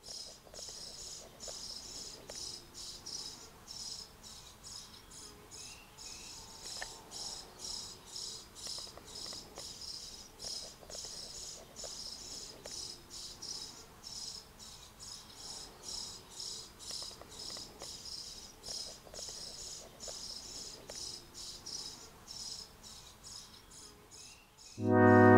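Insect chirping, a high, evenly repeated chirp about twice a second. Loud brass music comes in just before the end.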